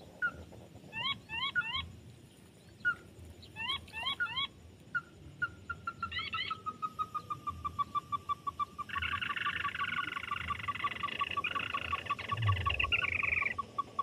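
Crakes calling: clusters of short rising notes, then from about five seconds in a long, evenly paced run of falling notes, with a dense burst of overlapping calls from about nine seconds to near the end. A brief low thump sounds about twelve seconds in.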